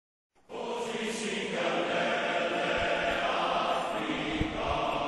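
A group of voices singing in chorus, starting about half a second in after a brief silence and carrying on steadily.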